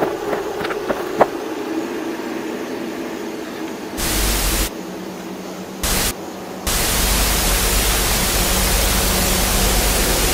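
A low steady hum with a few faint clicks, then loud TV-style static hiss cuts in twice briefly, about four and six seconds in, and comes on for good from about seven seconds.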